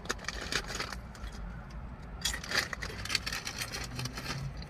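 A person chewing crunchy chips: irregular, crackly crunches over a steady low background hum.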